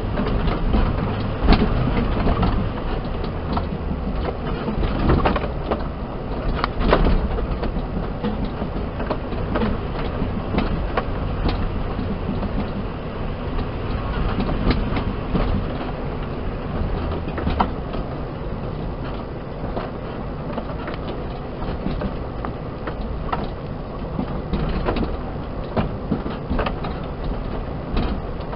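Cabin of a Suzuki Jimny driving slowly over a rocky track: a steady low drone of engine and tyres, with frequent knocks and rattles as the wheels climb over stones.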